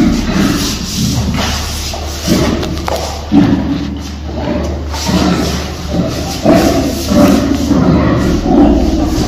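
Young gorillas wrestling in play, with dull thumps of bodies bumping and low gorilla vocal sounds, over a steady low hum.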